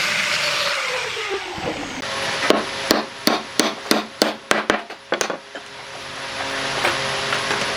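A power tool winds down with a falling whine, then about ten sharp hammer blows on wood, roughly three a second, over nearly three seconds.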